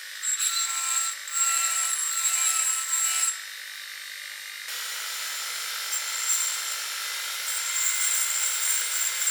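A grinding tool running at high speed on an Inconel 718 part, finishing the edge of a turbine nozzle guide vane blade: a steady high whine with rough metal-on-abrasive grinding noise. The grinding eases off about three seconds in and starts again, denser, at about five seconds.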